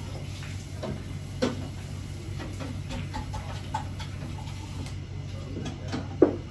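Snooker balls knocking: a sharp click about a second and a half in and a louder one near the end, over a steady low hum.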